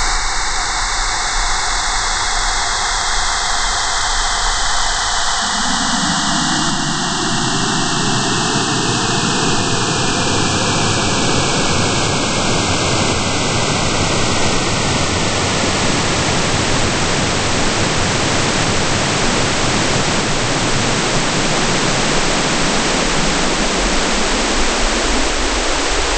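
Synthesized alien spaceship sound effect: a loud, steady rushing noise whose tone slowly sweeps like a phaser.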